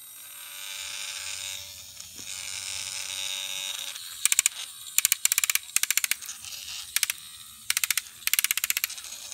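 Battery-powered Trackmaster Hyper Glow Thomas toy engine's small electric motor whirring as its wheels spin. From about four seconds in, it gives runs of rapid clicking in short bursts.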